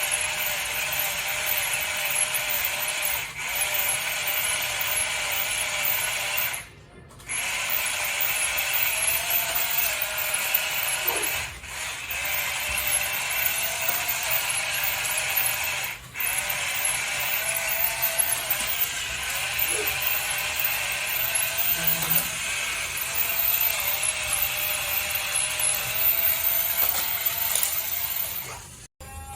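Small electric motors and plastic gearboxes of radio-controlled toy vehicles running with a steady gear whir and grind, the pitch wavering with throttle. The motors stop for a moment a few times.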